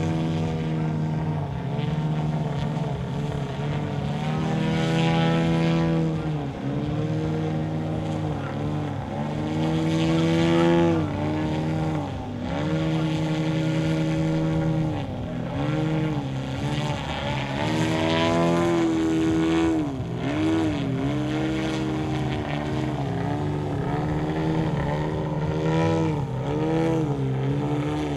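Radio-controlled aerobatic model plane's motor and propeller running, its pitch rising and falling many times as it flies manoeuvres.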